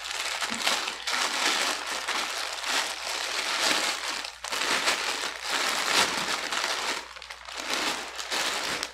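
Plastic mailing bag crinkling and rustling as hands pull it open and rummage inside it, in a continuous irregular stream of crackles.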